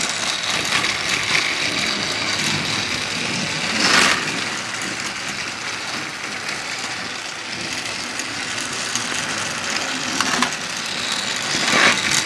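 Several battery-powered Trackmaster toy trains running on plastic track: a steady whir of their small geared motors with the wheels rattling over the track, and a few brief louder rattles, one about four seconds in and a couple near the end.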